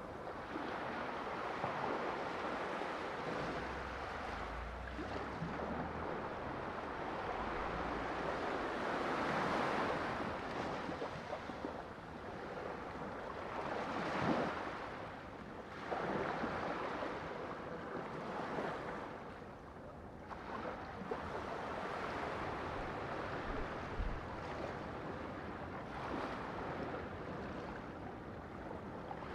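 Sea waves washing in and breaking, a continuous rushing wash that swells and ebbs every few seconds, with a sharper splash about halfway through.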